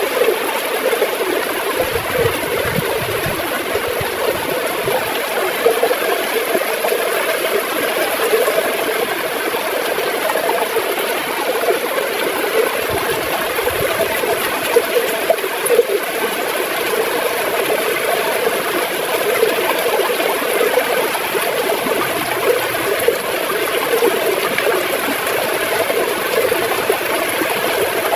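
River water gurgling as it flows, a steady rushing with a constant bubbling churn.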